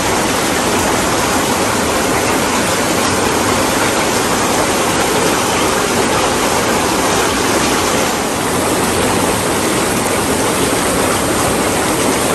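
Lay-Z-Spa inflatable hot tub with its air-bubble massage system running: the water churns and bubbles in a steady rush, with the air blower running beneath it.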